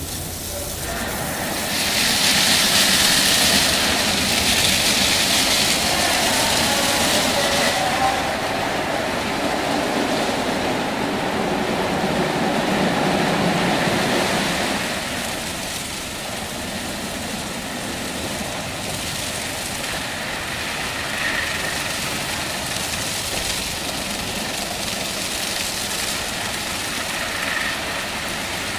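Aquarama rollover car wash running, its two vertical wash brushes spinning with a steady whirring swish. It is loudest and hissiest in the first several seconds and eases a little after about half way.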